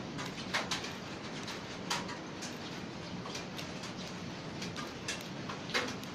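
Fidget spinner spinning with a steady whir, with light clicks at irregular moments.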